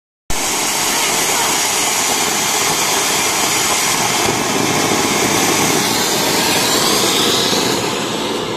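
Ground fountain firework (anar) spraying sparks with a loud, steady rushing hiss that starts abruptly and begins to die down near the end.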